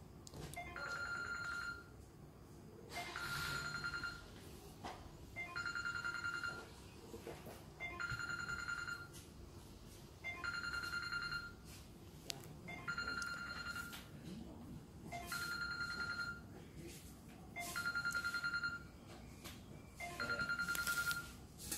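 Electronic telephone ringer: a trilled tone, a little over a second long, repeating about every two seconds.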